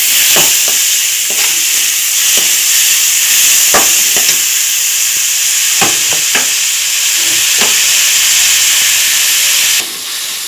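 Chopped onions frying in oil in a metal kadai, a steady sizzle, with the spatula scraping and knocking against the pan every second or so as they are stirred. About ten seconds in the sizzle abruptly drops quieter.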